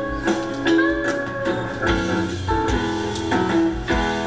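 Music: guitar notes over a regular low beat.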